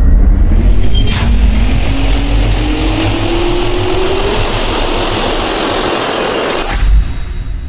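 Jet-turbine spool-up sound effect: a rising whine over a steady rush and heavy low rumble. A sharp hit comes about a second in, and the sound cuts off with another hit near the end.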